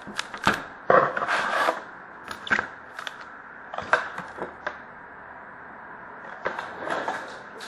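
Foil trading card packs and a cardboard card box handled on a glass tabletop: packs set down in stacks and the box lifted, giving light taps, clicks and short rustling scrapes. These come thickest in the first two seconds and again near the end.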